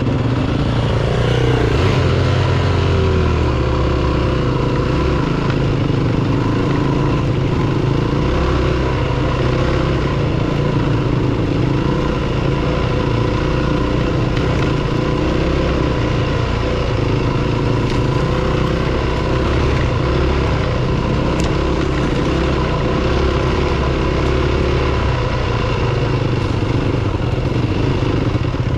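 Yamaha WR250F dirt bike's single-cylinder four-stroke engine running at low speed, recorded on the bike itself. The engine pitch falls over the first few seconds, then holds fairly steady.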